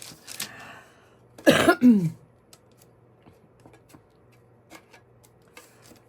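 A person coughs or clears her throat once, about a second and a half in, followed by faint scattered clicks and taps of small craft items being handled.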